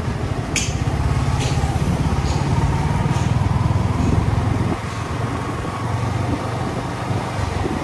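Motorcycle engine running steadily as the bike rides along, under a constant rush of wind and road noise.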